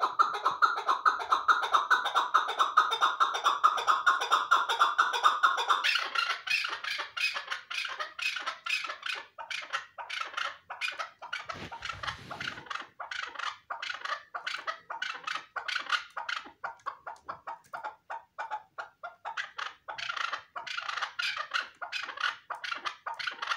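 Chukar partridge calling in a long rapid series of clucking notes, several a second. A little over a quarter of the way in the notes turn sharper and more spaced, and a brief low rumble comes about halfway.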